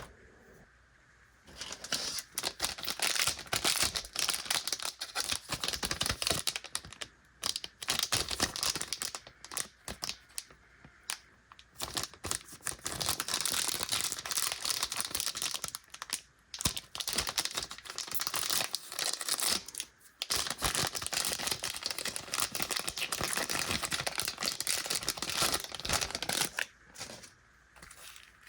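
Plastic candy wrapper crinkling and tearing as it is handled and opened by hand, in an almost unbroken run of crackling with a few short pauses.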